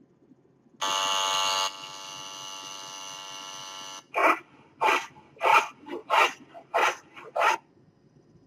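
Electric hair trimmer buzzing, loud for about a second and then steadier and quieter until it stops, followed by a handsaw cutting wood in seven back-and-forth strokes, about two a second.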